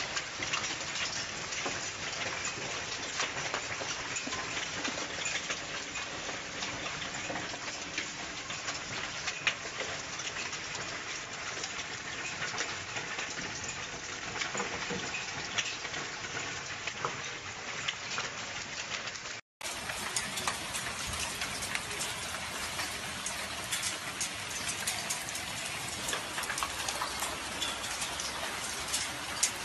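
Volcanic lapilli and ash falling like hail: a dense, steady pattering of small stones on roofs, pots and paving. It cuts out for a split second partway through, then carries on.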